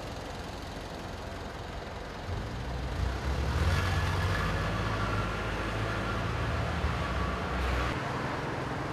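Street traffic noise, with a heavier vehicle passing: its low engine rumble swells about two seconds in and dies away near the end.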